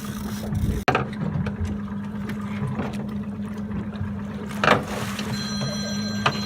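Boat engine running steadily at trolling speed, a constant low hum, with a few sharp knocks on board. A high steady tone comes in near the end.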